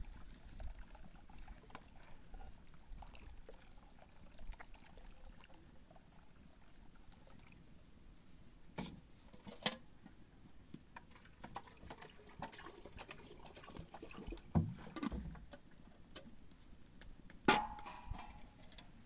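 Faint trickle of water poured from a plastic jerrycan into a small cup, with a few scattered knocks of plastic and metal vessels being handled; the sharpest knock comes near the end.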